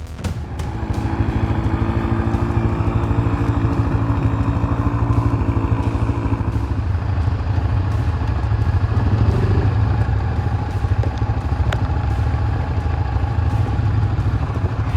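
ATV (quad) engine running loud and steady under way, with a fast, even pulsing. A higher engine tone sits over it for the first half and then fades.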